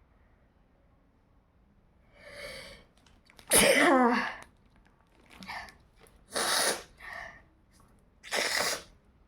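A person sneezing several times in a row, the first and loudest sneeze about three and a half seconds in, with softer breaths or sneezes between.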